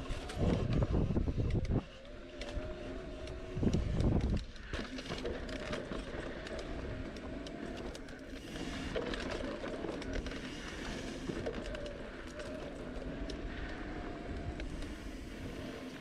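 Mountain bike riding along a sandy dirt trail: the knobby tyres and bike running over the ground with a steady, slightly wavering hum. Wind buffets the microphone twice in the first few seconds.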